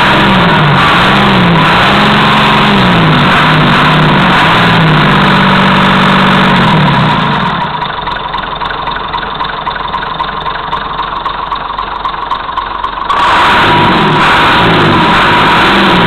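Perkins 6.354 straight-six diesel engine revved up and down repeatedly, dropping to a quieter idle about halfway through, then revved again near the end.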